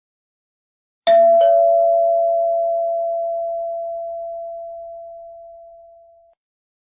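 Nokia phone ringtone of a two-note ding-dong chime: a higher note struck about a second in and a lower note a third of a second later, both ringing on and fading slowly over about five seconds.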